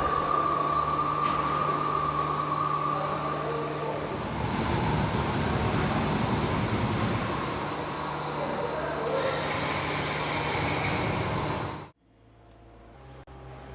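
Machinery running with a steady motor hum and mechanical noise, which stops abruptly about twelve seconds in.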